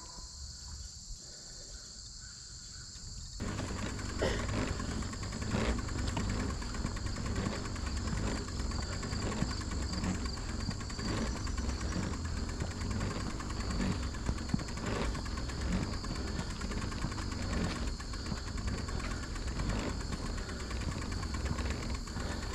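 Steady high-pitched insect chorus. About three seconds in, a low rumble with scattered clicks and knocks joins it.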